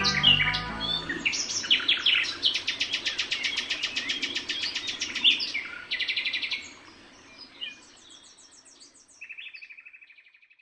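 Songbirds singing in rapid trills as the last guitar notes die away in the first second or so. One long trill runs for about three seconds, then shorter trills follow and fade out near the end.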